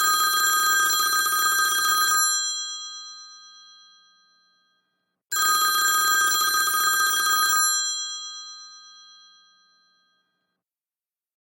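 iPhone ringtone imitating an old telephone's bell. It rings twice, about five seconds apart, each ring a rapid bell trill lasting about two seconds that then fades away.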